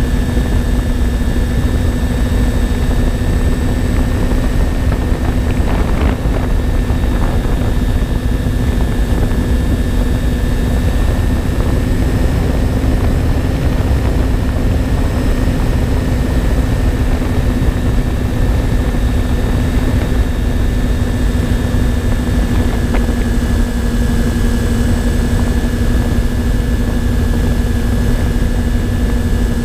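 Twin electric motors and propellers of a MyTwinDream FPV plane running at a steady cruise: a constant whine that barely changes pitch, over wind rushing across the onboard microphone.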